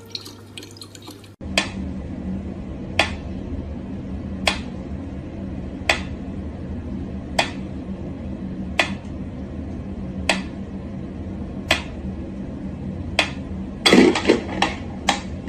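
Mechanical pyramid metronome ticking slowly, one sharp tick about every second and a half, over a low hum. Near the end comes a quick cluster of louder clicks and knocks as a cat paws at it. At the very start there is a brief trickle of water from a faucet.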